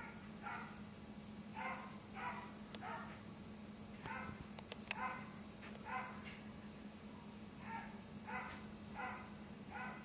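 A dog barking over and over, about a dozen short barks in runs of three or four, each run's barks about half a second apart, over a steady high hiss. A couple of faint clicks come about halfway through.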